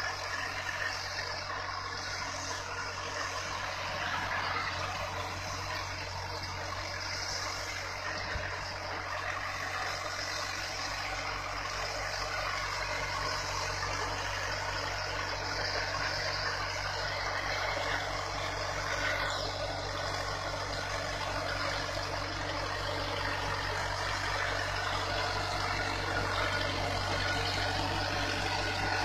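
Tractor engine running steadily under load while pulling a grader attachment over a dirt road.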